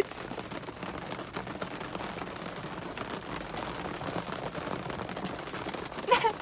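Hard rain falling on a car's roof and windows, heard from inside the car: a dense, steady patter of many small drop hits.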